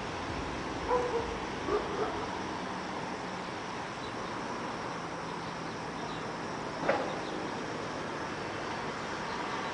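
Steady outdoor hum of a town, with four short animal calls in the first two seconds and one louder call about seven seconds in.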